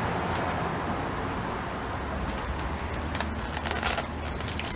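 Crinkling and rustling of plastic packaging being handled, starting about two seconds in, over a steady low background hum of traffic.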